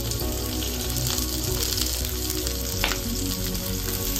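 Sliced onions sizzling in hot oil in a kadai as they fry, stirred with a slotted spatula, with one sharp click about three seconds in.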